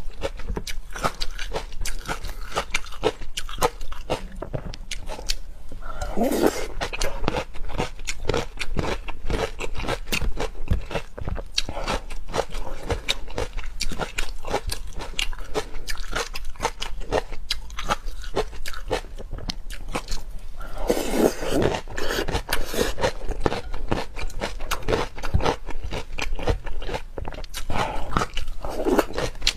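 Close-miked eating of raw marinated shrimp: rapid crunching, biting and chewing with a dense run of small clicks and crackles. Two longer, fuller mouth sounds come about six and twenty-one seconds in.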